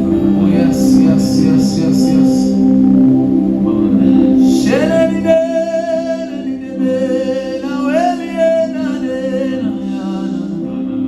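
Worship music: sustained keyboard pad chords, with a short run of light high taps in the first seconds, then a voice singing long wordless held notes from about halfway.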